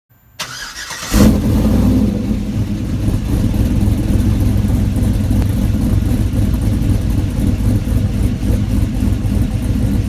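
A car engine starting: a short lead-in, then it catches loudly about a second in and keeps running with a steady, low, dense sound.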